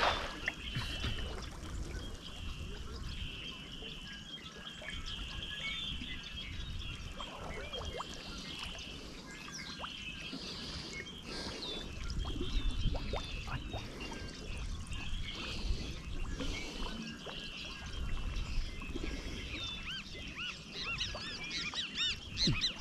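Water trickling and splashing, with birds chirping steadily throughout and calling more busily near the end.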